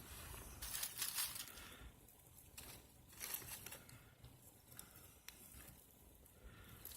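Dry oak inner-bark tinder crinkling and rustling as it is handled, in two bursts about a second in and past the three-second mark, with a few sharp clicks.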